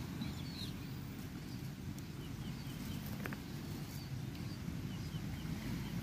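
Steady low rumble of wind and rough surf on a rocky shore, with a few faint short bird chirps and a single light click about three seconds in.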